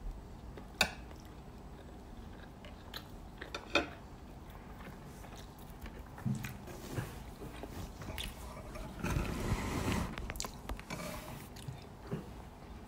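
A person chewing a mouthful of rice and sardines, with sharp clicks of a metal fork and spoon against a plate, twice in the first four seconds. About nine seconds in there is a louder stretch of rustling and handling noise.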